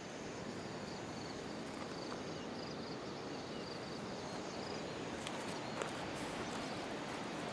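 Steady outdoor rushing noise with a faint insect chirping in short high trills about once a second through the first half, then a few light clicks and rustles around five to six seconds in.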